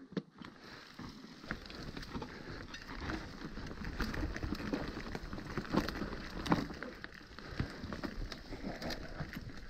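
Mountain bike riding down a rocky trail: tyres crunching over loose stones, with scattered sharp knocks and rattles from the bike. The noise builds about a second in.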